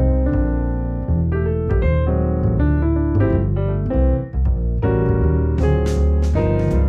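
Background music: a piano melody over a steady bass line, with sharp cymbal-like drum hits joining about five and a half seconds in.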